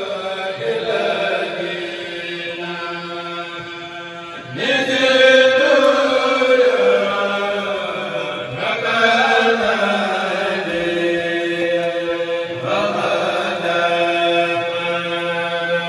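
A group of men chanting Arabic religious verse together, Mouride khassida style, amplified through a sound system. They sing in long, drawn-out lines, and each new line comes in louder, roughly every four seconds.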